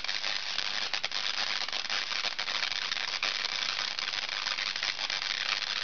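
Spark gap Tesla coil running, its discharges arcing off the toroid into the air with a dense, continuous crackling buzz.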